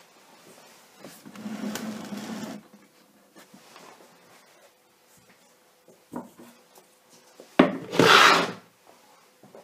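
Rubbing and scraping against a hard surface: a longer stretch about a second in, a few small knocks, then a short louder scrape near the end, over a faint steady hum.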